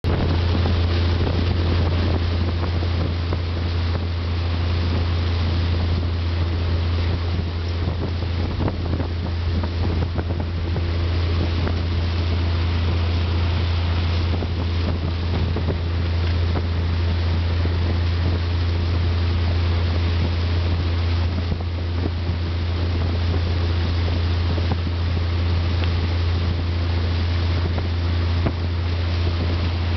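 Tow boat's motor running steadily at towing speed, heard from on board as a constant low drone, with wind buffeting the microphone and the rush of the wake.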